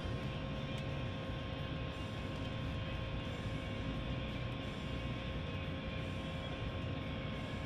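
A small motor or fan running: a steady hum and rushing noise with a faint constant whine.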